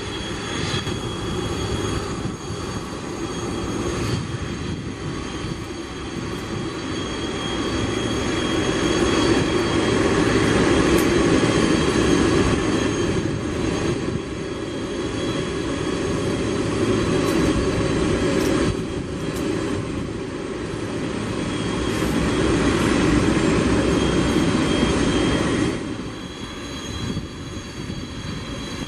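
Jet engines of a Boeing 747-400 freighter running at taxi power as it passes close by: a steady rush of engine noise with a high-pitched whine. It grows louder twice as the aircraft nears and drops off sharply about three seconds before the end.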